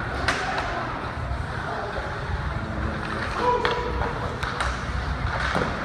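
Ice hockey rink ambience: a steady din of spectators' voices with a few sharp clacks from sticks and puck out on the ice, and one voice calling out a little past three seconds in.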